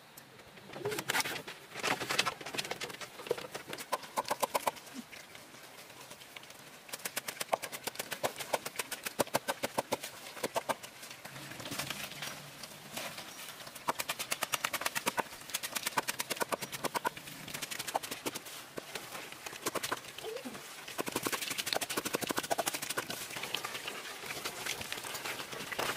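Several small black pigs eating shredded banana stem, with rapid, wet crunchy chewing and chomping that comes in quick runs.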